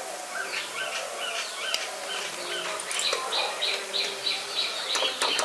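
A bird chirping in short repeated calls, about three a second in the second half, over the hiss and occasional crackle of soya chunks deep-frying in oil.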